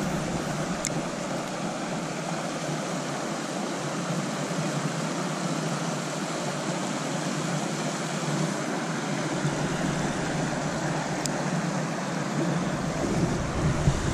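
Steady rush of creek water running over a shallow riffle, with a couple of faint clicks about a second in and near the end.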